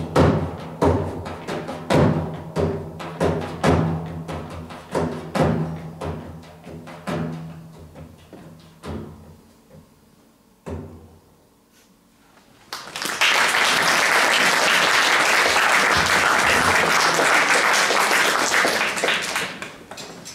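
A folk piece ends on evenly spaced frame-drum strokes with ringing pitched notes, about one and a half a second, thinning out and fading away over about ten seconds. After a short lull, the audience applauds for about seven seconds.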